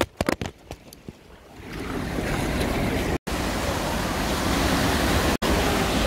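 Shallow stream water rushing steadily over a concrete ford, coming in about a second and a half in after a few faint clicks. It cuts out briefly twice.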